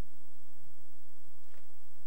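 Steady electrical hum and hiss of room tone, with one faint click about one and a half seconds in.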